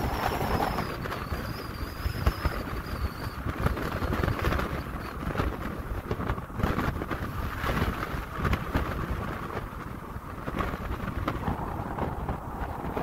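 Wind buffeting the microphone over the low rumble of a car driving along a road, gusting up and down. A faint wavering high whine sounds for the first few seconds.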